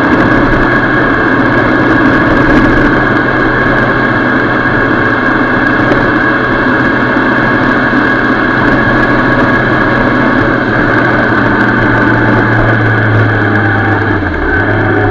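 Motorcycle engine running steadily while riding at road speed, with wind noise. The engine note dips briefly near the end.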